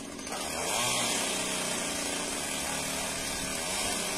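Two-stroke engine of a Stihl MS 194 T C top-handle chainsaw revving up just under a second in and holding at full throttle, cutting into the tree trunk.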